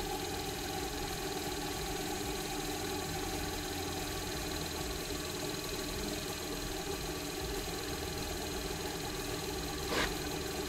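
Small cue lathe motor running steadily, spinning a pool cue shaft while fine 1200-grit sandpaper is held against the new Horo break tip to polish it. A brief knock near the end.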